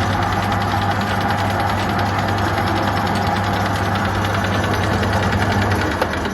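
Atlas TH54 metal lathe running under power: a steady motor hum with mechanical clatter from the drive. Near the end the hum drops out, a click is heard, and the machine starts to run down.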